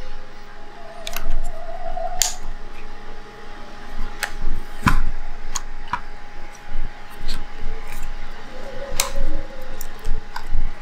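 Small tools and parts clicking and tapping on a Sony A7R Mark I camera body during disassembly: about ten sharp, irregular clicks.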